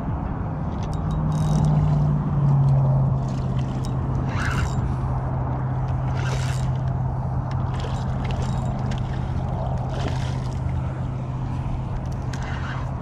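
Spinning reel being cranked steadily while a hooked red drum is brought in, giving a steady low whir that steps down in pitch a couple of seconds in. A few short bursts of splashing or scraping come through over the whir.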